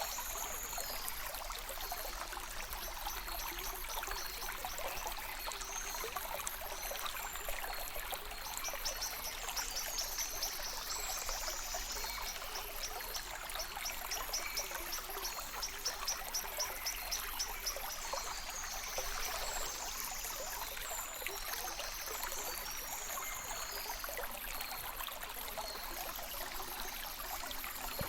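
Spring river bubbling steadily as a continuous rush of water. Around the middle, a run of high, rapid chirps sounds at about three a second over it.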